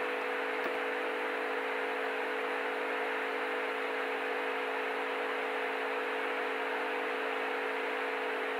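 Steady hiss with a low, unchanging hum: the recording's background noise, with a faint click just under a second in.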